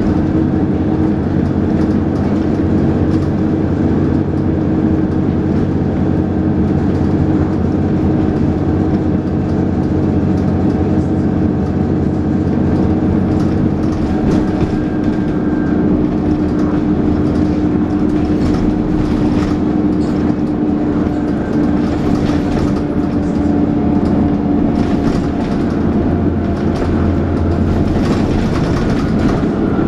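Dennis Trident 2 double-decker bus's diesel engine heard from on board, running steadily under way with the whining 'hoover' note and engine thrash. Short body rattles come and go over the steady drone, more of them in the second half.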